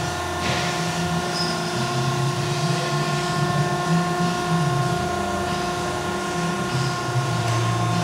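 Piqua 40 series vertical baler's electro-hydraulic power unit running: a steady motor-and-pump hum with several fixed tones over a low, wavering drone.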